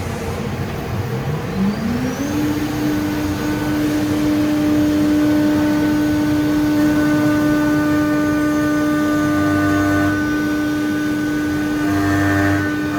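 CNC machining centre spindle spinning up, its whine rising for about a second and a half, then running at a steady speed with a steady whine.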